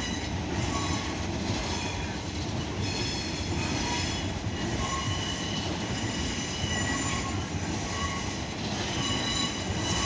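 A pair of coupled Class 455 electric multiple units arriving at the platform, wheels rumbling with several high-pitched squeals that come and go.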